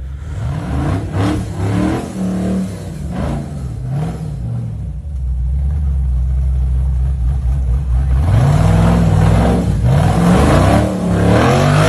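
Tube-chassis rock buggy's engine revving hard in repeated rising and falling bursts as it claws up a wet rock ledge. It runs steadier for a few seconds in the middle, then revs loudest over the last few seconds.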